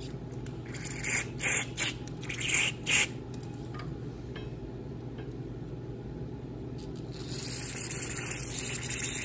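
Aerosol brake cleaner sprayed through a thin straw into the jets of a Mikuni carburetor: several short squirts of hiss in the first three seconds, then a longer spray near the end.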